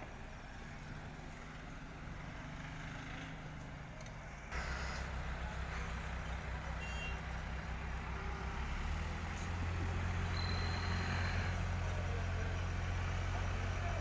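Diesel engine of an Escorts Hydra mobile crane running steadily, getting suddenly louder about four and a half seconds in and louder again near nine seconds.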